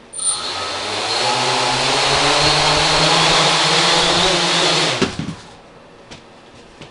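Homemade carbon-fibre H-frame quadcopter's four electric motors and propellers spinning up to a steady buzzing hum, rising in pitch over the first second and then holding. About five seconds in the motors cut off with a sharp knock and a short clatter.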